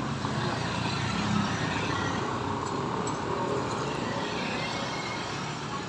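Street traffic: motorcycles and other vehicles passing by in a steady background of road noise.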